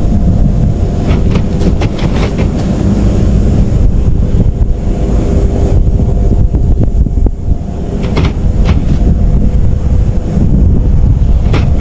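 Low vehicle rumble with a steady engine drone, heavy on the microphone, broken by a few sharp clicks or rattles about two seconds in and again about eight seconds in.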